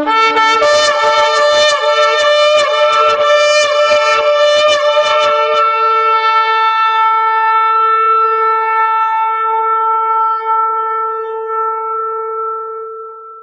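A shofar (ram's horn) blown in one long blast: it wavers and breaks rapidly for about the first five seconds, then settles into a steady held note that fades away near the end.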